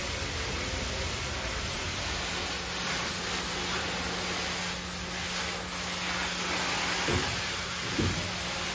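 A fire hose sprays a steady jet of water onto a carrier's steel anchor chain, a continuous hiss and splash, with a low steady hum underneath from about two seconds in. Two short knocks sound near the end.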